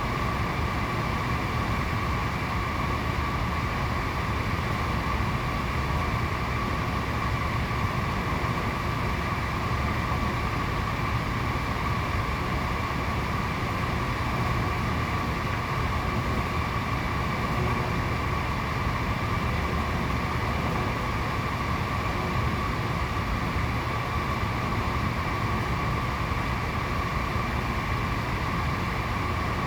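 Convection blower fan of a 6000CLX-IFT-S heater running steadily: an even whir with a steady whine, and no distinct rattle standing out.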